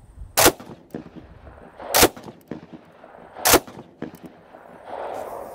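Three single semi-automatic shots from a Colt Monitor, a .30-06 Browning Automatic Rifle fitted with a large Cutts Compensator muzzle brake. The shots come about a second and a half apart, each a sharp blast with a short echo after it.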